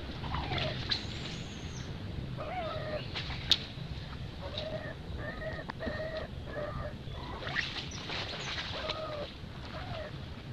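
Short animal calls, repeated a few notes at a time, over a steady low wind rumble on the microphone, with one sharp click about three and a half seconds in.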